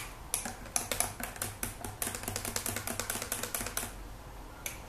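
A spoon clinking rapidly against the inside of a cup while stirring instant chocolate drink powder into water to dissolve it, at about seven or eight clinks a second. The stirring stops just before four seconds in, with a couple of single clinks near the end.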